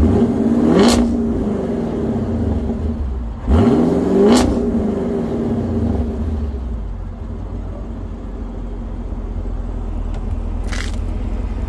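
Chevrolet Camaro SS's 6.2-litre V8 revved twice through its exhaust, each rev rising sharply and falling back, then settling into a steady idle. A short hiss near the end.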